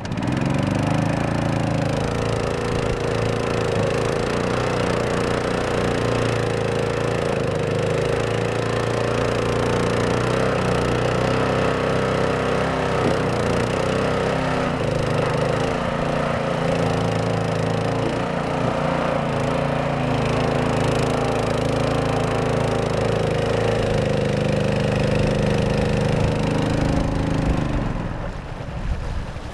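Mud Buddy longtail mud motor on a canoe running steadily at high throttle, pushing the boat through water only an inch or two deep. It is throttled back about two seconds before the end.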